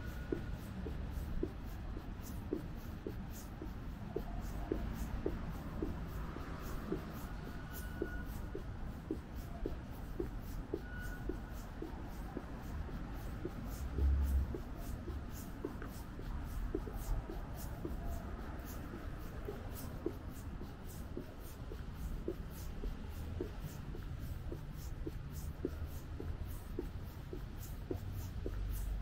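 Footsteps walking at a steady pace, about two steps a second, over a low steady background rumble, with a brief louder low rumble about halfway through.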